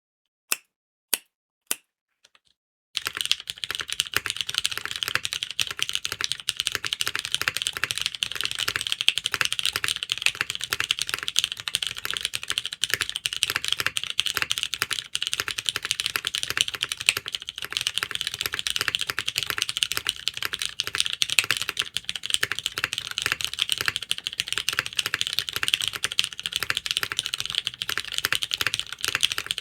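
Typing on a Mode SixtyFive mechanical keyboard with broken-in Cherry MX2A Brown tactile switches, a POM plate and DCS keycaps. Three separate keystrokes come about half a second apart, then steady fast typing begins about three seconds in.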